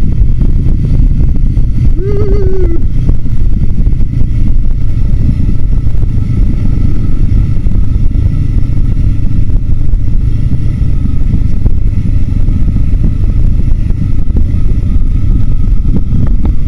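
Adventure motorcycle riding on a dirt trail: a steady, loud low rumble of the engine running and wind buffeting the microphone. A brief wavering tone sounds about two seconds in.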